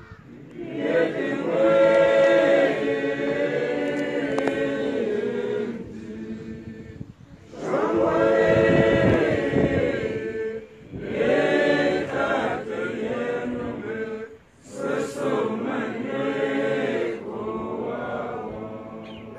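Several voices singing a prayer song together, in four phrases separated by short breaths.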